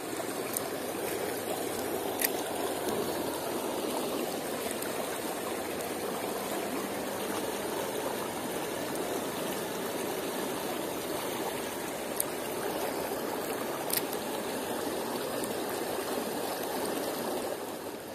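Shallow river running over rocks: a steady rush of flowing water, with a couple of faint clicks.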